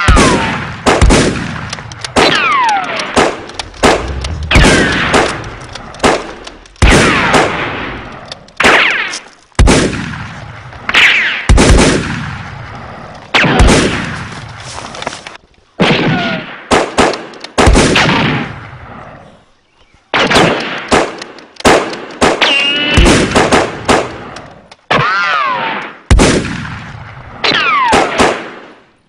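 Gunfire sound effects laid over a Nerf battle: a steady exchange of single shots, roughly one a second, each with a ringing tail, several followed by a falling whine like a ricochet, with a brief lull about two-thirds of the way through.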